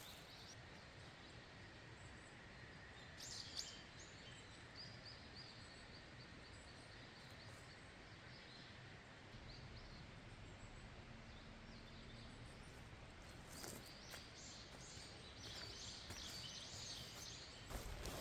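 Quiet outdoor ambience: a faint steady background hiss with a few short, high bird chirps, in two spells, about three seconds in and again near the end, and a few soft knocks.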